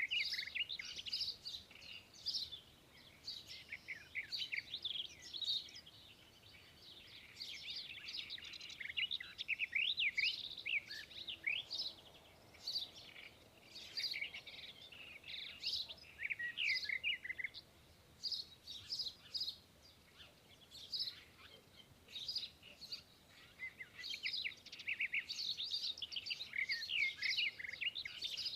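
Magpie calling: a busy, almost continuous run of short chirps and quick whistled pitch glides, easing off briefly a few times before picking up again.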